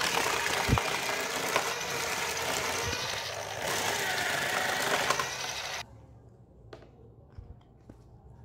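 Homemade slicer's motor spinning its cutter disc with a steady whirr as a cucumber is pushed down the chute and sliced; the sound cuts off suddenly about six seconds in, leaving only a few faint clicks of slices being handled.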